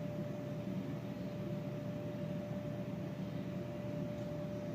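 Steady electrical and mechanical hum with a thin, constant whine above it: the background drone of powered-up equipment on a repair bench.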